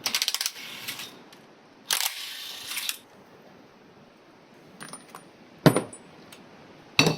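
Hand ratchet clicking rapidly, then a rattle and several separate metallic clinks and knocks as engine parts and tools are handled, the loudest knock a little before the end.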